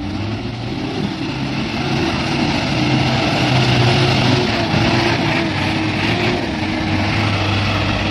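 Diesel engine of a Hino tanker truck running steadily as it pulls through deep mud, growing louder over the first couple of seconds, its pitch wavering only slightly.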